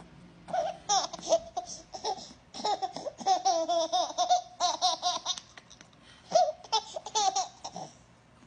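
A baby laughing in runs of short, high-pitched bursts, with a brief pause a little past halfway.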